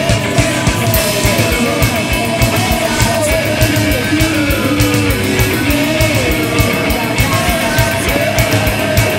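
Rock music with a fast, steady drum beat, guitar and a singing voice.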